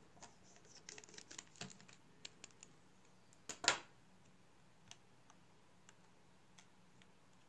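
Small clicks and taps of a precision screwdriver and fingertips on the metal parts of an iPhone 6s display assembly's home-button bracket. A quick cluster of clicks comes first, then one louder scraping click about halfway through, then a few scattered ticks.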